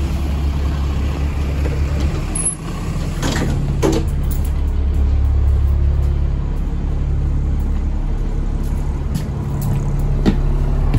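Alexander ALX400 double-decker bus running, a steady low engine drone whose note shifts a couple of times, with a few short knocks and rattles.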